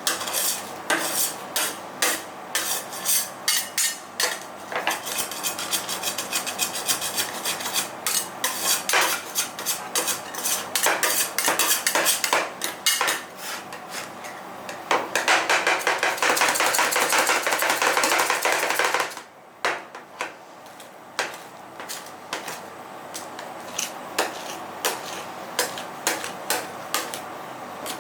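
Metal spatulas chopping and tapping fast on a cold steel ice-roll plate, a long run of quick metallic clacks. About two-thirds of the way through they scrape steadily across the plate for a few seconds, and the clacks are sparser after that.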